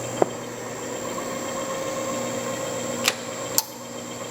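Victor 3 hp electronic-variable-speed milling machine running, its spindle turning while the quill power feed drives it down. It makes a steady hum with a high, even whine. Three sharp clicks come through, one just after the start and two near the end, and after the last one it runs slightly quieter.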